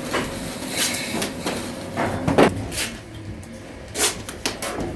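A string of irregular knocks and clatters, about eight or nine over a few seconds, with a low hum underneath.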